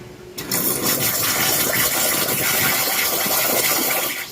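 Espresso machine's steam wand blowing steam into a cup of water: a loud, steady hiss that starts about half a second in and cuts off near the end.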